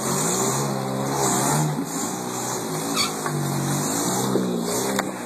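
Off-road vehicle engine revving up and down repeatedly as it crawls over rocks, with two sharp clicks about three and five seconds in.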